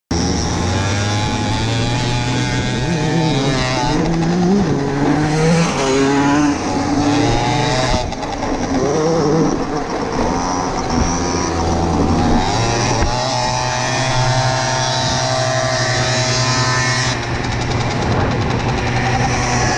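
Small scooter engines revving and running at speed, their pitch rising and falling with the throttle.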